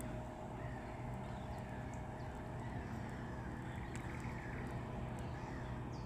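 Faint bird calls, a few short chirps and high calls, over a steady low rumble.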